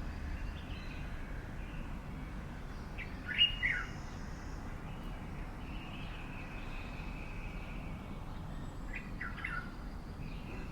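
Wild birds calling: a loud, short call of a few quick falling notes about three seconds in, a similar fainter call near the end, and faint chirps between. A steady low background rumble runs underneath.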